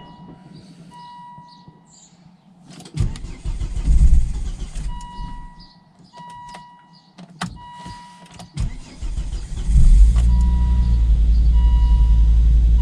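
2002 Volvo V70 2.4 five-cylinder engine cranking once without catching, then cranking again about nine seconds in and starting, running steadily to the end. This is its first start after a thermostat replacement and coolant refill. A warning chime beeps on and off throughout.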